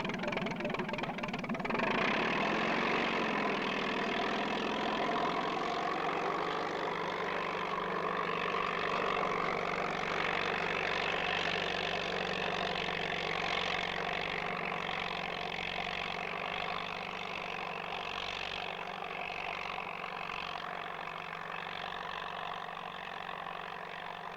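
A heavy engine running steadily, a dense hum of many held tones over a low rumble, settling in about two seconds in and easing slightly toward the end.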